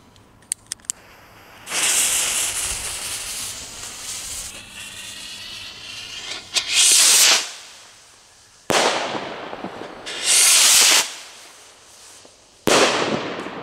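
Two firework rockets fired one after the other from an automatic launch stand, the second lit by the first through the stand's fuse channel. A long rushing hiss as the first rocket lifts off and climbs, then several loud noisy bursts and bangs that ring out and die away.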